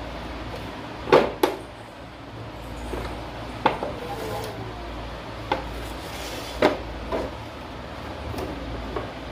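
Irregular sharp knocks and clatter of wet grinder parts being handled and fitted back together during a repair, the loudest two close together about a second in. A steady low hum runs underneath.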